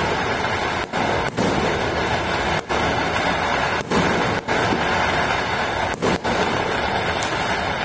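Dense, continuous din of many fireworks and firecrackers going off across a city, recorded on a phone's microphone. The sound cuts out briefly about once a second.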